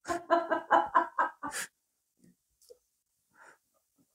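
A woman's high-pitched laugh in about seven quick bursts, ending about a second and a half in, followed by a few faint small handling sounds.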